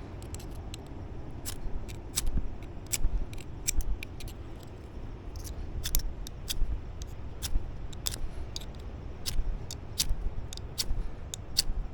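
Ferrocerium rod of a magnesium fire starter being struck over and over with a scraper: short, sharp scrapes about two or three a second, irregularly spaced, throwing sparks to light a tinder pile.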